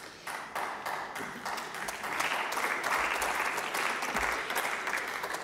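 Applause from members of parliament, many hands clapping together and swelling about two seconds in.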